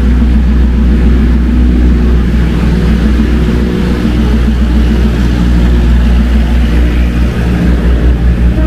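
Engine idling steadily with a deep rumble and an unchanging hum.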